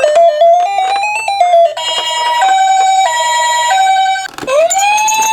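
Electronic siren sounds: a quick run of stepped beeping tones, then a two-tone high-low ambulance siren alternating about every half second. Near the end it switches to a siren winding up into a steady wail.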